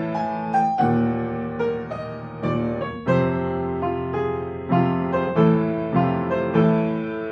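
Background piano music: notes and chords struck in a steady, unhurried rhythm.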